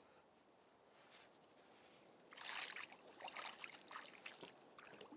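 Water splashing and trickling at the side of a kayak in irregular bursts. The splashing starts about two seconds in, after a near-quiet start.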